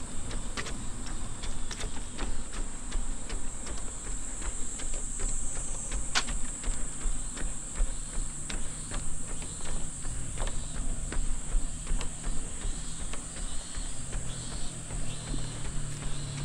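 Running footsteps landing in a steady rhythm on a dirt trail, under a steady high-pitched drone of summer insects.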